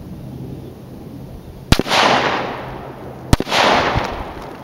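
Two AR-15 rifle shots in .223, about a second and a half apart, each a sharp crack followed by a rolling, fading report, with the bullets striking watermelon pieces close to the microphone.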